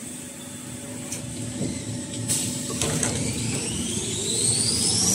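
Kitchen towel paper production line machinery running with a steady mechanical noise and a few light clicks. About three seconds in, a whine starts to rise in pitch and levels off near the end.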